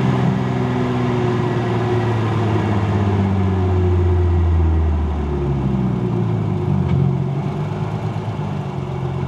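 Nissan GT-R R35's tuned twin-turbo 3.8-litre V6 heard from inside the cabin, running at low, steady revs with no hard acceleration. A deep drone under the engine note falls in pitch and fades out midway.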